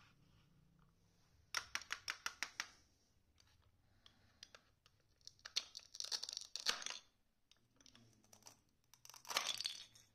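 Plastic toy knife cutting velcro-joined plastic toy fruit on a plastic cutting board. A quick run of about eight light plastic clicks comes first, then twice a rasping tear as the halves pull apart, about halfway through and again near the end.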